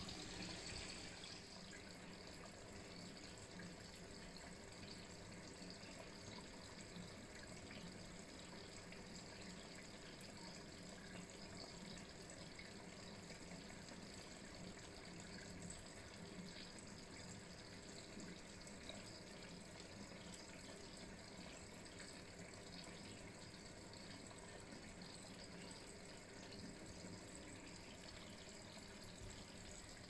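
Vintage Candy 133 front-loading washing machine during a rinse: faint, steady trickling and sloshing of rinse water in the turning drum.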